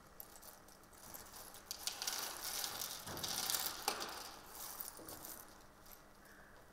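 Small plastic objects clicking and rattling against each other and a tabletop as they are poured out and gathered together by hand, busiest in the middle and tailing off near the end.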